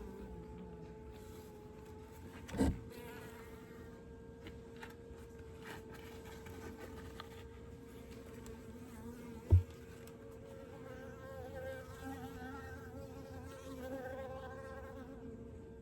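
Honeybees from an open hive humming steadily, the buzz swelling and growing fuller from about eleven seconds in. Two short sharp knocks stand out, one about three seconds in and one about ten seconds in.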